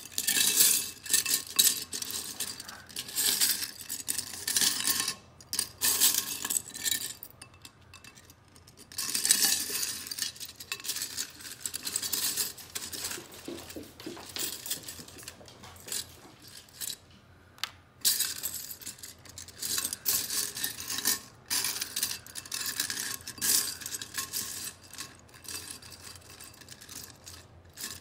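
Loose Lego bricks clattering and clinking as a hand rummages through them in a ceramic bowl. The clatter is irregular, with a few short pauses, one of them a little past the middle.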